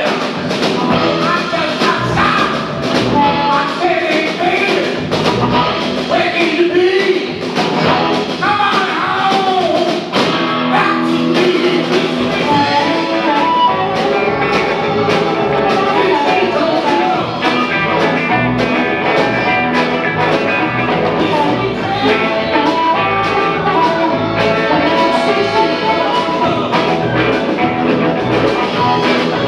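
Live rock band playing a rock-and-roll blues number with electric guitars, drums and keyboards. A lead vocal line bends in pitch over roughly the first ten seconds, then the band plays on with steadier instrumental lines.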